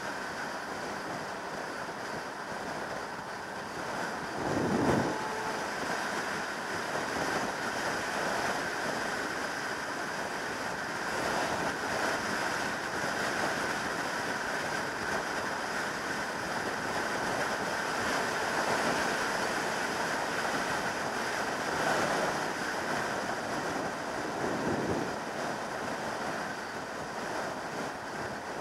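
Wind rushing over the microphone of a sport motorcycle at motorway speed: a steady rush of air, with louder buffeting gusts about five seconds in and again near the end.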